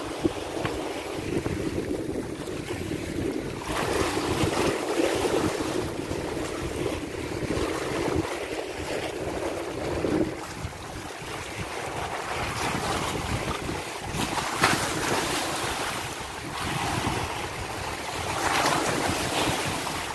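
Sea waves washing against a rock breakwater, rising and falling in several louder surges, with wind buffeting the microphone.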